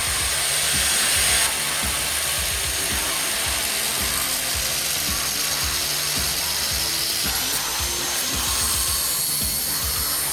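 Angle grinder running steadily and grinding into a plastic airsoft rifle body, a continuous harsh hiss with a high whine that is brightest for the first second and a half.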